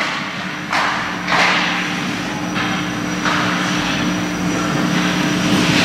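Hockey skates scraping and carving on the ice in several hissing bursts as players battle along the boards. Under them runs a steady low hum from the rink.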